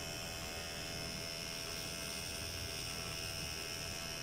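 Electric hair clippers running with a steady hum as they trim the hair at the front of the head.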